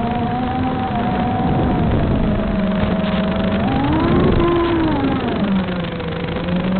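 Whining motor of a flying model, its pitch rising about three and a half seconds in and dropping back low near the end, over steady wind noise.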